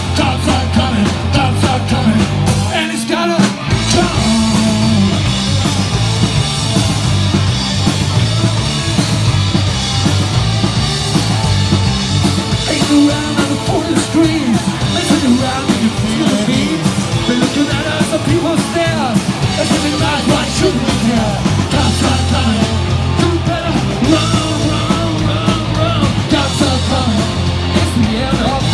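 Live rock band playing: a singer over electric guitars, bass and a drum kit, with a short break in the bass and drums about three seconds in.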